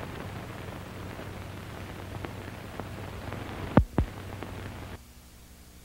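Hiss and crackle of an early-1930s film soundtrack left running with no music, with two sharp pops just before four seconds in. The hiss drops to a fainter level about five seconds in.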